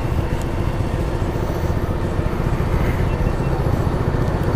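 BMW K1600 Grand America's inline-six engine idling steadily.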